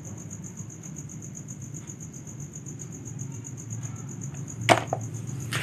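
Insects chirping steadily in a fast, even pulse. About three-quarters of the way through comes a sharp clack of a plastic toy animal set down into a plastic basket of toy figures, with a second, softer knock near the end.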